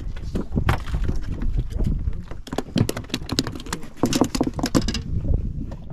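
A fish flapping on a boat's fiberglass deck: a rapid, irregular run of slaps and clicks lasting about two and a half seconds, starting a couple of seconds in, over a low rumble of wind on the microphone.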